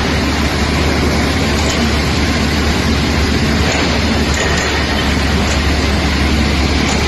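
DYP-90 wet shotcrete machine running: a loud, steady mix of low machine drone and hiss with no breaks.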